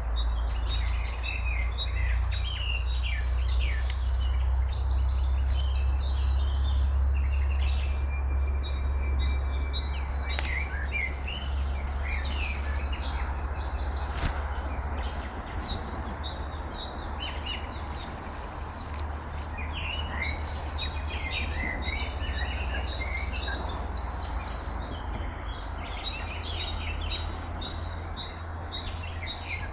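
Several songbirds singing and chirping in quick overlapping phrases over the steady rush of a river, with a steady low rumble underneath.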